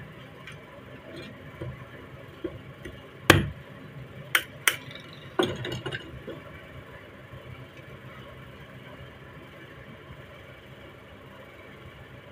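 Sharp metal clicks and knocks as the parts of a 30 bore rifle's receiver and trigger group are handled and fitted together while the new hammer goes in. One loud click comes about three seconds in, two quick clicks follow a second later, and one more ringing click comes a second after that, all over a steady low hum.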